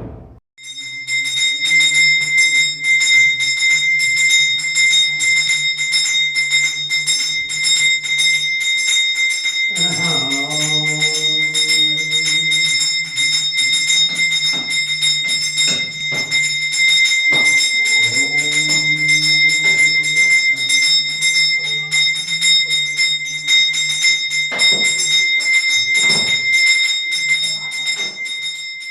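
A small hand bell of the kind used in worship, rung rapidly and without a break as one high ringing tone. A lower pitched sound that rises and falls runs beneath it.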